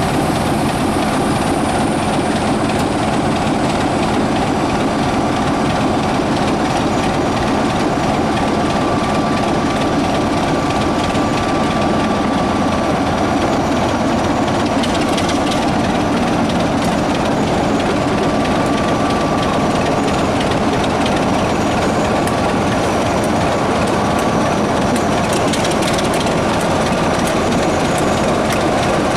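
Heritage diesel train running along the line: a steady rumble of wheels on rails with some clickety-clack and small clicks.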